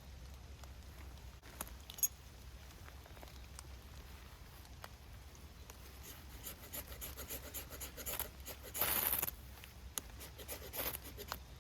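Short scraping strokes that grow busier from about six seconds in, with one longer, louder rasp about nine seconds in. A sharp click comes about two seconds in.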